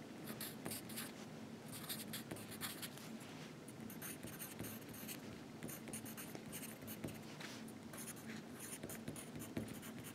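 Handwriting: faint, irregular scratchy strokes of a pen or marker being written with.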